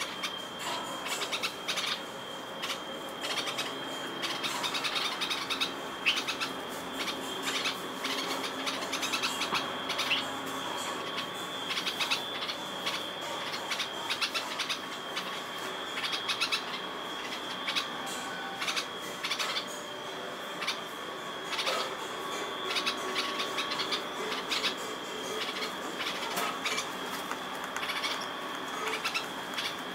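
Red-vented bulbuls chirping in short, quick clusters of high notes, repeated throughout, over a steady thin high-pitched tone.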